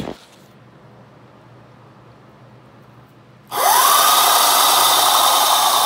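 Electric scooter's motor, driven by a 48-volt 1000-watt controller, spinning the chain-driven rear wheel off the ground at full throttle. After a few quiet seconds it starts suddenly about three and a half seconds in with a loud whine that shoots up in pitch and then sags slowly as it runs.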